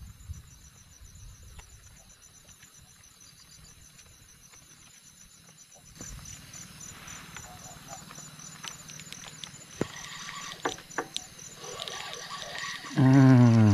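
Night insects chirping in a steady, fast, high-pitched pulse. From about halfway, clicks and rustling of handling close by, and near the end a short, loud vocal sound falling in pitch.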